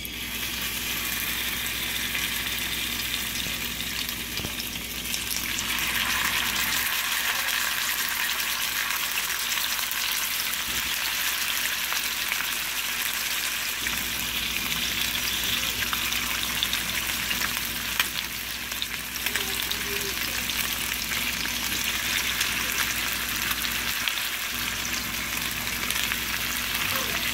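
Surfperch fillets sizzling as they fry in hot olive oil in a nonstick pan. The sizzle is steady and gets a little louder about five or six seconds in.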